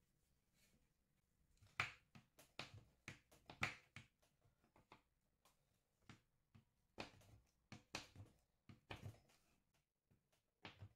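Kitchen knife chopping a bar of dark chocolate on a wooden cutting board: irregular sharp knocks of the blade cutting through onto the board. They come in two flurries with a sparser stretch between.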